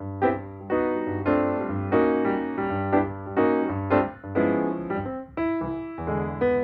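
Background music: piano or electric piano playing chords with a steady bass line.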